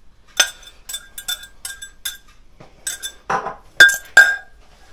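A wire whisk clinking repeatedly against a glass measuring jug, scraping out the last of the milk-and-egg mixture. The clinks ring and come irregularly, about eight of them, with the two loudest near the end.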